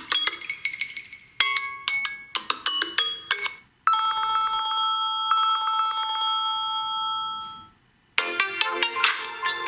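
Samsung Galaxy A71 stock ringtones playing. A phrase of bright, quickly struck notes is heard twice. Then a steady held chord lasts about four seconds and fades out, and a new, busier melody of many notes starts just after eight seconds in.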